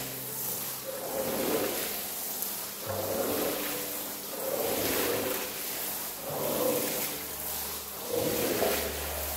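High-pressure water spraying from a pressure-washer wand as it sweeps back and forth across a wet rug. The hiss swells and eases with each stroke, about every one and a half to two seconds.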